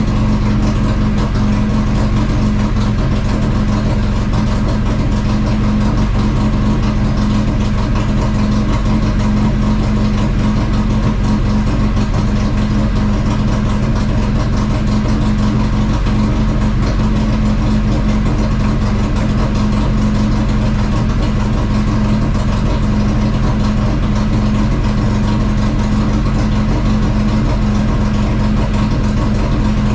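Chevrolet Caravan's carbureted four-cylinder engine, heard from inside the car, running at a steady, unchanging pitch with no revving or gear changes.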